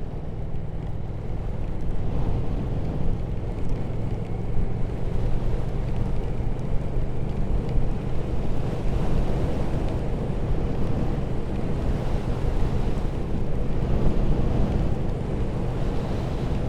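Triumph Speed Twin 1200's parallel-twin engine running at a steady cruise, with wind noise rushing over the microphone.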